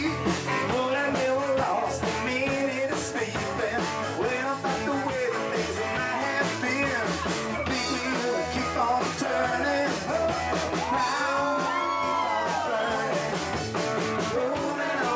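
Rock and roll band playing, with a singer over electric guitar and drums keeping a steady beat.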